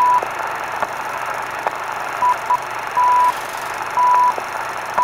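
Film countdown leader: a short, high, steady beep about once a second, with two shorter blips in the middle, over a steady hiss of old film with a few faint clicks.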